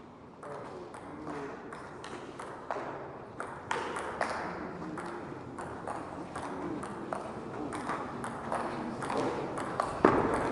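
Table tennis rally: the celluloid ball clicking off the paddles and bouncing on the table, a sharp tick every second or so. A louder, harder hit comes near the end.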